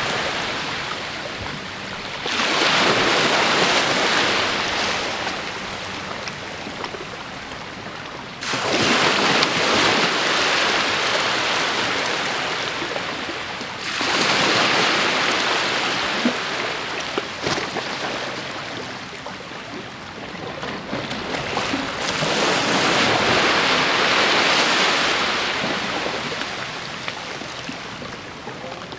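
Small waves breaking on a sandy beach and washing up the shore. The surf hiss swells in a surge every six to eight seconds, then fades as the water runs back.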